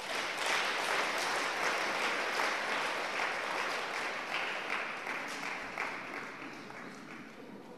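Congregation applauding, rising suddenly and then slowly dying away.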